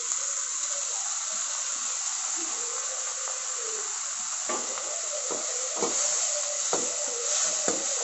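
Chopped tomato, onion and green chillies sizzling in hot oil in a metal kadai. From about halfway through, a steel ladle stirs them, knocking and scraping against the pan several times.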